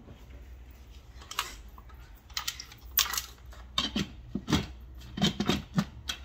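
Instant Pot lid being set on the pot and twisted into place: a run of irregular sharp clicks and knocks, louder from the middle on.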